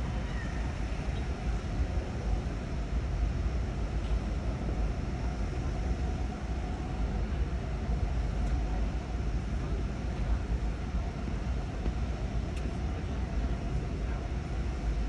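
Steady outdoor background of traffic: a low rumble with a faint steady hum and no distinct events.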